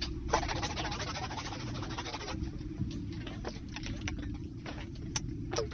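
Pencils on paper: a dense run of quick scratching strokes for about two seconds, then scattered sharp taps and clicks, over a steady low rumble.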